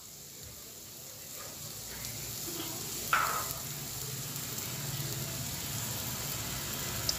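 Onions, green chilli and ginger-garlic paste with chilli powder frying in oil in a kadai: a steady sizzle that slowly grows louder, with one short scrape of the steel ladle about three seconds in.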